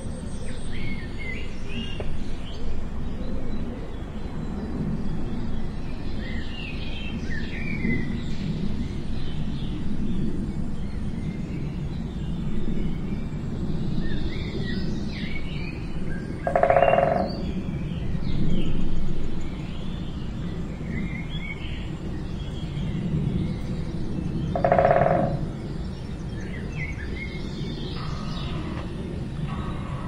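Small wild birds chirping and tweeting here and there over a steady low rumble. Twice in the second half, about eight seconds apart, a short louder mid-pitched sound stands out.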